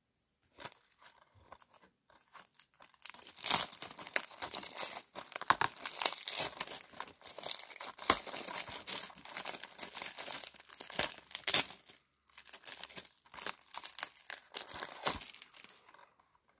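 Thin plastic shrink-wrap being torn and peeled off a Blu-ray case, a dense run of sharp crinkling and crackling that stops briefly about three-quarters of the way through, then crinkles again.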